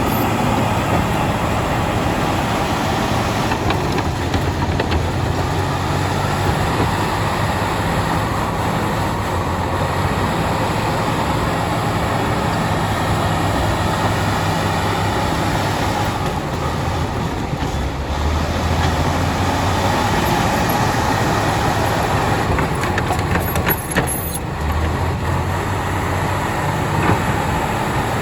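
Crawler bulldozer's diesel engine running loudly under load, its note shifting as it works, with the rattling and clanking of steel tracks; a few sharp clanks near the end.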